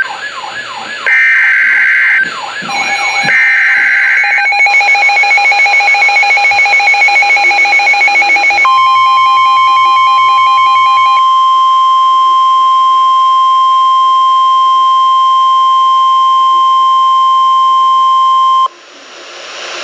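Emergency Alert System tones: the last short screeching data bursts of a SAME header, with a warbling siren-like tone sweeping over them, then a pulsing alert tone. From about nine seconds in, a steady single-pitch NOAA Weather Radio 1050 Hz warning alarm tone sounds for about ten seconds and cuts off abruptly.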